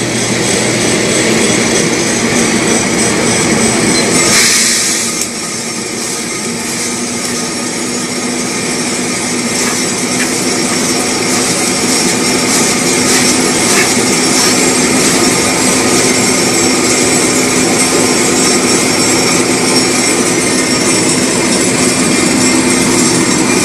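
Homemade drum coffee roaster running with a steady mechanical whir and hum while roasted coffee beans pour from its drum into a metal cooling tray and rattle as they are stirred. A brief louder rush of noise comes about four seconds in.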